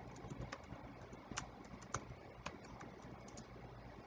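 Typing on a computer keyboard: a faint run of uneven keystrokes that stops shortly before the end.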